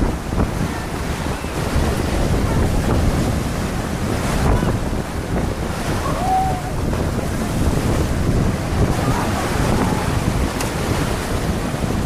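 Sea waves washing onto the shore, with strong wind buffeting the microphone in a steady low rumble.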